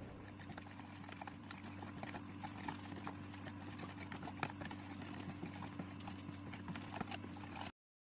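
Plastic spoon stirring liquid sauce in a plastic tub: faint, irregular clicks and taps over a low steady hum. It stops abruptly just before the end.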